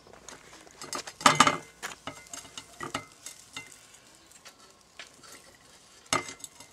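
Metal fork clicking and scraping against a wire grill basket and a plate as grilled pork ribs are lifted off, over a faint hiss. Louder knocks come about a second in and again near the end.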